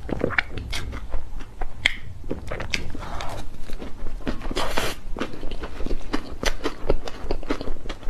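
Close-miked mouth sounds of eating a soft mousse cake topped with chocolate cookie crumbs: wet smacking and chewing clicks, many in a row, with a brief rustling noise about halfway through, over a low steady rumble.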